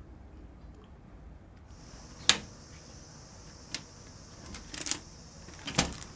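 A metal apartment mailbox being opened and a letter taken out: a handful of sharp clicks and clacks, the loudest about two seconds in and a cluster near the end, over a steady high hiss.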